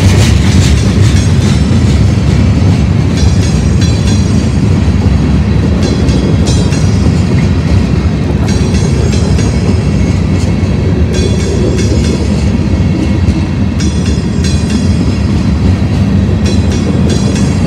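Freight train hopper cars rolling past close by: a loud, steady rumble of steel wheels on rail with clicking. Brief high metallic ringing or squeal from the wheels comes every few seconds.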